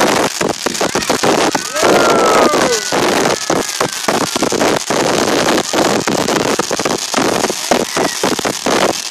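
Ground fountain firework spraying sparks with loud, rapid, continuous crackling. A short wavering tone rises and falls about two seconds in.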